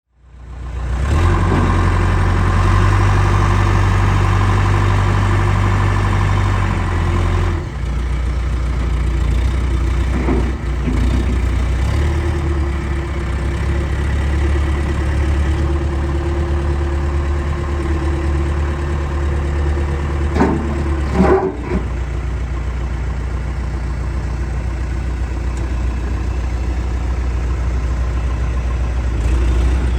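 John Deere 410J backhoe's diesel engine running steadily, its speed shifting a few times, with a few short knocks about two-thirds of the way through.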